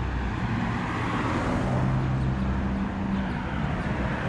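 A car engine idling, a steady low hum, under a wash of outdoor traffic noise.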